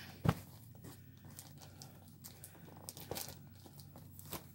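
Plastic mailer packaging crinkling and rustling as a parcel is handled, in scattered crackles. A sharp thump about a quarter second in is the loudest sound.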